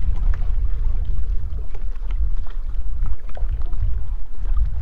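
Wind buffeting the microphone in a loud, uneven low rumble, with faint scattered ticks and slaps of choppy water against boat hulls.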